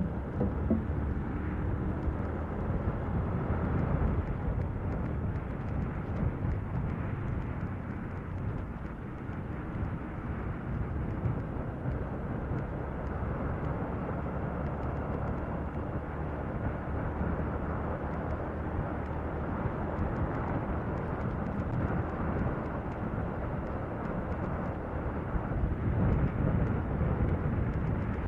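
Yamaha Sniper 150 motorcycle ridden at speed: a steady rush of wind and engine noise.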